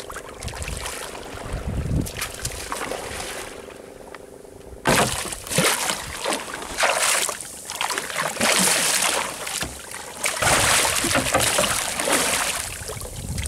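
Water splashing and sloshing as a hooked sailfish thrashes at the surface beside the boat, with loud bursts of splashing starting suddenly about five seconds in.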